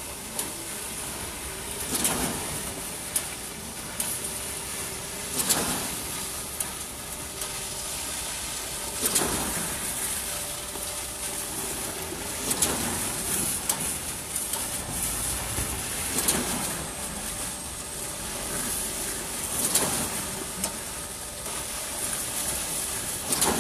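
Truck-mounted Everdigm 56-metre concrete pump running as it pumps concrete up the boom: a steady machine noise with a surge about every three and a half seconds, one for each pump stroke.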